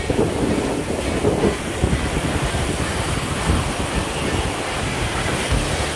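Ocean surf breaking and washing up the beach, with wind buffeting the microphone in uneven low rumbles.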